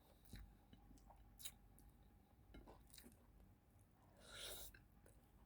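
Quiet close-miked chewing and mouth sounds, with a few soft clicks and a brief swell of noise about four seconds in.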